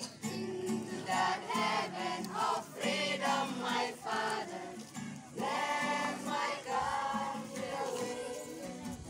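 A group of young voices singing together, accompanied by an acoustic guitar.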